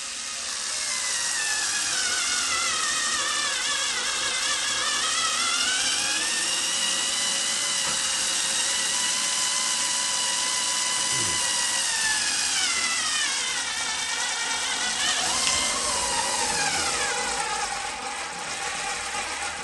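Makita 3.6 V cordless pencil screwdriver driving a 150 mm coach screw into wood. Its motor and gears whine steadily, the pitch sinking and recovering as the load on the screw changes, then settling lower near the end as the motor labours.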